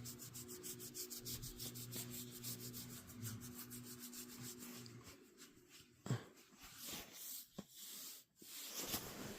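Faint rubbing and scuffing of cloth on a dog's fur, under a low steady hum that stops about five seconds in.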